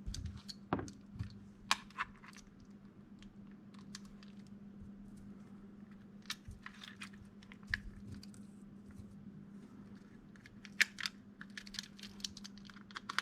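Irregular small clicks and taps of plastic parts being handled and fitted together on a 3D-printed airsoft mine, over a faint steady hum.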